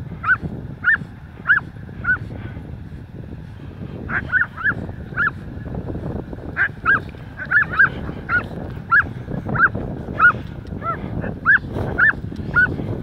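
Female Belgian Malinois squealing in play while wrestling another dog: short, high-pitched squeaks over and over, about two a second, with a short break about two seconds in. Excited, hysterical play squealing rather than pain.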